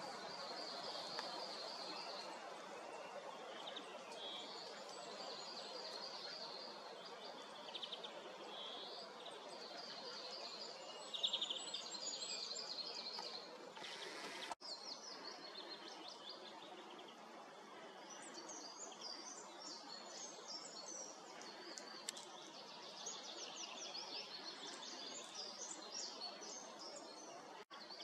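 Several forest songbirds singing, overlapping short repeated phrases and trills, over a steady faint background hiss. A louder, sharper call stands out about eleven seconds in.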